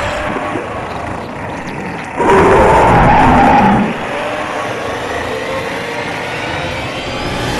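Sound effects from an animated action scene: a rushing noise, louder for over a second about two seconds in.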